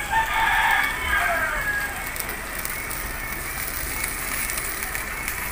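Butter-garlic shrimp sizzling in a covered aluminium wok, a steady frying crackle. In the first second and a half a short pitched sound rises over it and falls away at its end.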